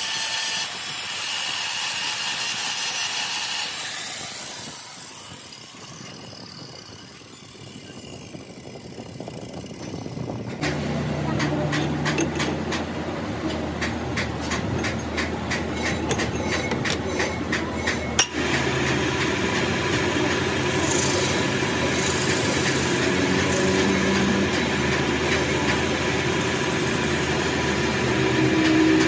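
Angle grinder grinding the steel shaft journal of a differential spider gear for the first few seconds, then dying away. From about ten seconds in, a metal lathe runs with a steady hum: first a run of fast ticks, then a single sharp knock a little past halfway, then the lathe keeps turning while a file is held against the spinning spider.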